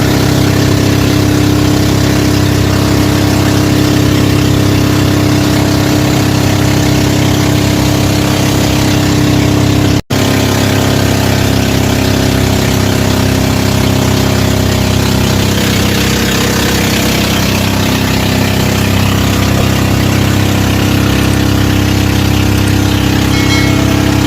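Boat engine running steadily, a dense drone of engine tones that holds even throughout. The sound cuts out for an instant about ten seconds in.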